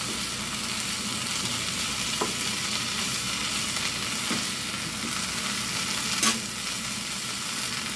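Kale and broccoli sizzling in a stone-coated frying pan as they are stirred with a spatula, a steady frying hiss with a few taps of the spatula against the pan, the sharpest about six seconds in.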